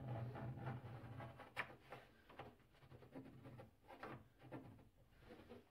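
Pencil scratching on an MDF panel: a run of short, uneven marking strokes, the sharpest about one and a half seconds in, growing fainter toward the end.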